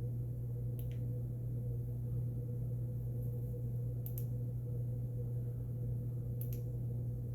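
A steady low electrical-sounding hum with a few brief, faint clicks spaced a couple of seconds apart, as a handheld flashlight is handled.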